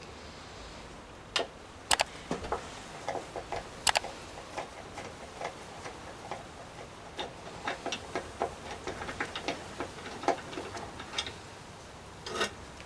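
Screwdriver working a screw in a scooter's grab-rail mounting: a run of small, uneven metallic clicks and ticks, with a few sharper clicks in the first four seconds.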